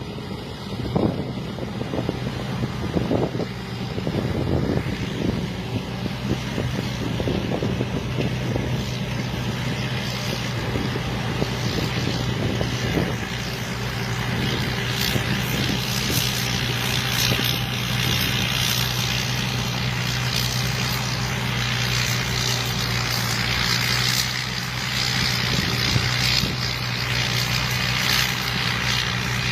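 Combine harvester running with a steady engine drone, with a few irregular knocks in the first several seconds and a rushing hiss that grows louder about halfway through.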